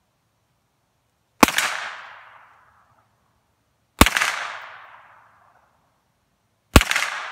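Three single shots from a Hi-Point 995TS 9mm carbine, about two and a half seconds apart. Each is a sharp report that trails off in about a second of echo.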